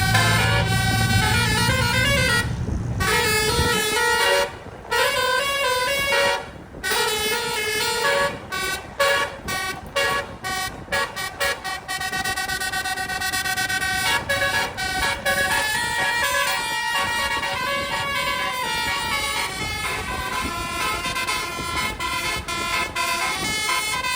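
Bus telolet horn, a multi-trumpet electric air horn, playing a tune of held notes that step between pitches, with a quick run of short staccato toots partway through. A low rumble sits under it for the first few seconds.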